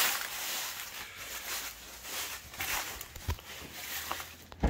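Footsteps through dry leaves with rustling and handling noise, uneven swells of scuffing. A single sharp knock a little over three seconds in.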